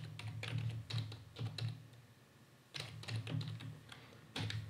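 Typing on a computer keyboard: runs of quick keystrokes, a pause of about a second, then more keys.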